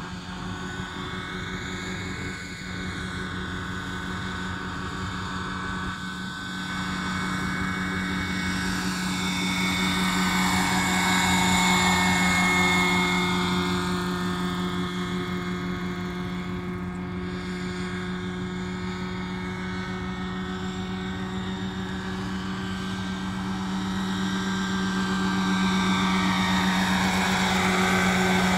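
Radio-controlled scale Bell 212 (Huey) model helicopter in flight, its rotor and motor giving a steady hum of constant pitch. The hum swells as the helicopter passes close, about ten seconds in and again near the end.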